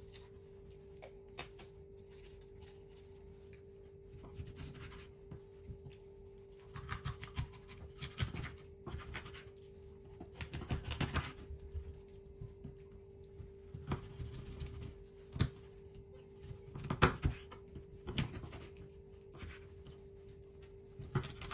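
Knife cutting up a raw whole chicken on a wooden cutting board: irregular sawing and scraping through meat and joints, with sharp knocks of the blade on the board, the loudest about 17 seconds in. A steady hum runs underneath.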